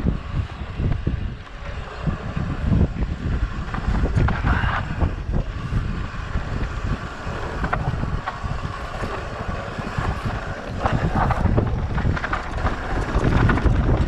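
Wind buffeting the camera microphone over the rumble and rattle of mountain bike tyres rolling fast down a dirt trail, the noise surging unevenly with the bumps.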